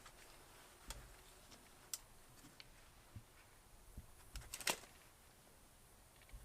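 Mostly quiet, with a few scattered clicks and light knocks from objects being handled, including a quick cluster of sharp clicks about four and a half seconds in.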